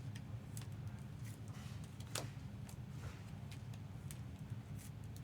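Scattered light clicks and taps of trading cards being handled and slid into plastic sleeves and cases, one sharper click about two seconds in, over a steady low hum.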